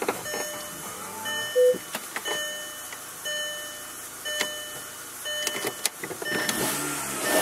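A Mk4 VW Golf's dashboard warning chime, sounding short electronic tones about once a second, with scattered sharp clicks between them. A rushing noise builds near the end.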